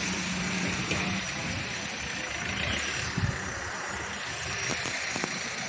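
Street noise with a motor vehicle engine running; its steady hum fades about a second in, and there is a brief low thump about three seconds in.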